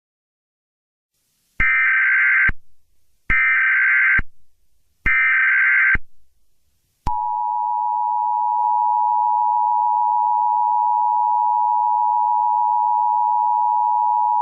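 Emergency Alert System tones: three short bursts of the SAME digital header, each just under a second, then, about seven seconds in, the steady two-tone EAS attention signal (853 and 960 Hz sounding together). This sequence marks the start of an emergency alert broadcast.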